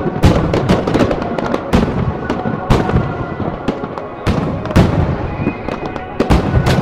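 Aerial fireworks shells bursting in quick succession: sharp, loud bangs about two or three a second at uneven spacing, each trailing off in a smear of echo.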